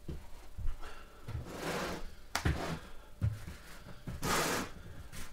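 Weighted plastic buckets being lifted, shifted and set down on the floor: a series of dull thumps, with a couple of brief rustling scrapes between them.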